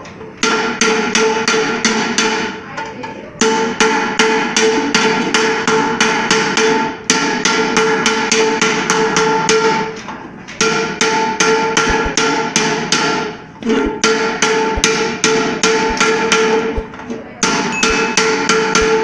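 Rapid hammer blows on the rim of a metal pressure cooker, about five a second, in runs of three to four seconds with short breaks. The pot rings with a steady tone under the blows. The swollen, warped rim is being beaten back down level.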